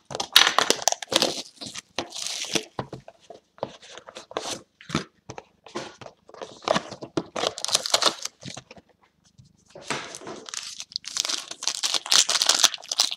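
Hands tearing open a sealed trading-card box in quick runs of short rips. After a short pause, the wrapper of the card pack inside crinkles and tears as it is opened near the end.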